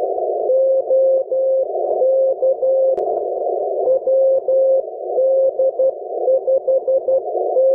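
Morse code (CW) from a 10-metre amateur radio beacon, heard through a transceiver: a single steady tone keyed on and off in dots and dashes, sending the beacon's callsign WD5GLO/B, over a narrow band of radio hiss.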